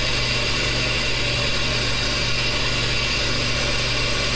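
Water running steadily from a tap into a watering can as it fills, a constant rushing noise over a steady low hum.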